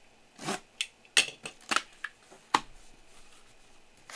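A box cutter slitting packing tape on a cardboard case, then the case's cardboard flaps being pulled open: a quick run of short, scratchy rasps and snaps in the first two and a half seconds.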